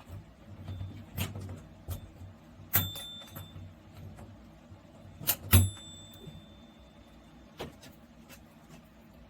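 Handling of hardware while fitting a mounting plate with screws: about half a dozen sharp clicks and knocks, the two loudest leaving a brief thin ringing tone.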